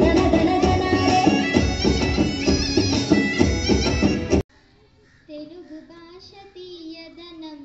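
Loud music playing, cut off abruptly about four seconds in. It is followed by a girl's voice singing alone through a microphone, with no accompaniment.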